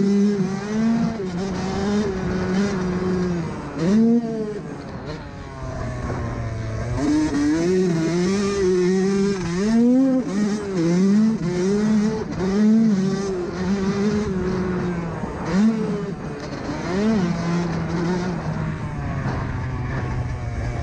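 2017 Yamaha YZ125 two-stroke motocross engine being ridden hard, its pitch climbing and dropping again and again as the rider revs it out, shifts and backs off. Wind rushes over the microphone throughout.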